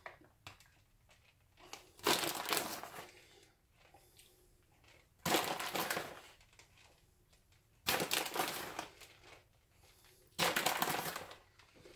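Plastic bag of shredded mozzarella crinkling in four short bursts, about two and a half seconds apart, as handfuls of cheese are pulled out of it.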